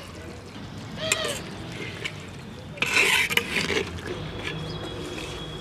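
Metal spatula scraping against the inside of a clay handi pot while stirring mutton curry, loudest in a rough scrape about three seconds in.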